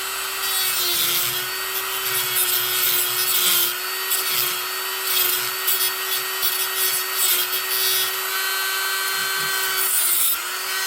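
Dremel rotary tool with a diamond cutting wheel grinding into the steel rivet heads of a Schlage deadbolt: a steady high motor whine with rasping grinding that comes and goes as the wheel bites, its pitch sagging briefly under load about a second in and near the end. The spinning wheel is cutting grooves that turn the rivet heads loose like screws.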